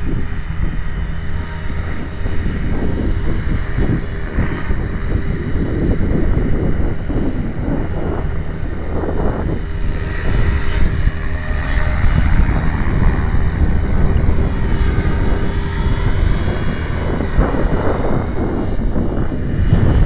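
Align T-Rex 600E electric RC helicopter in flight: its rotor and motor whine, rising and falling in pitch, over heavy wind buffeting on the microphone.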